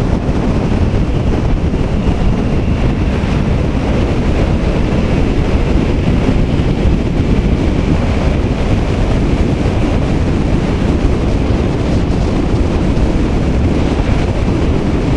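Loud, steady wind rush over a helmet camera's microphone on a motorcycle riding at road speed, with the bike's running and road noise blended underneath.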